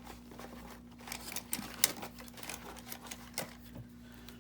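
Small clicks and taps of craft supplies being handled on a desk while a roll of vintage tape is fetched, with one sharper click a little under two seconds in.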